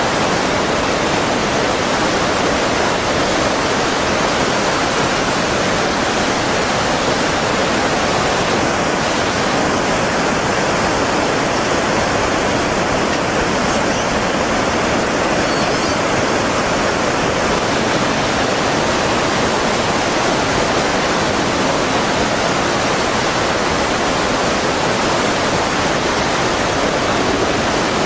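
Steady rushing of water, loud and even.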